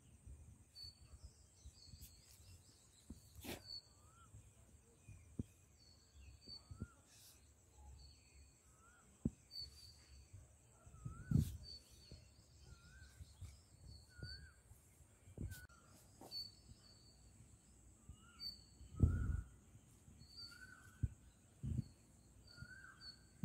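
Small birds chirping over and over, short calls about once a second, with a few dull thumps in between, the loudest near the middle and again toward the end.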